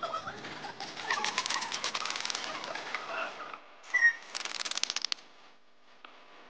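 Audience clapping: a burst of applause that dies away after about three and a half seconds, then a short, loud, high-pitched sound and a second brief round of quicker, more even clapping.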